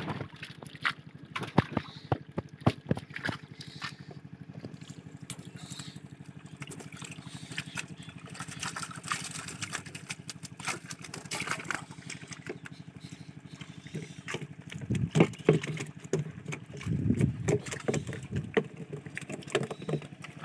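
Water splashing and trickling from a fine mesh fishing net full of live fish being lifted and emptied, with many short flapping splashes. A small engine runs steadily underneath, and voices come in briefly about fifteen seconds in.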